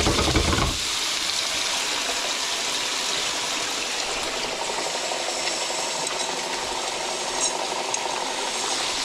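Panko-coated beef burgers shallow-frying in hot beef dripping: a steady sizzle, with a brief low thump in the first second.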